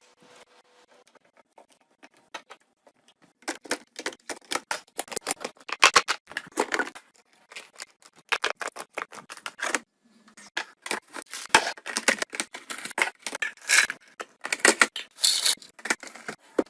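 Food and drink containers being handled and set into a fridge: a rapid run of clicks and taps with plastic packaging rustling. It starts about three seconds in and breaks off briefly around ten seconds.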